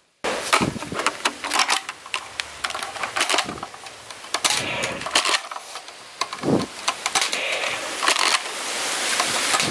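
Plastic clicks and snaps of a Blaze Storm soft-bullet toy blaster being handled and fired, an irregular string of sharp clicks, with a steadier rushing noise over the last second or two.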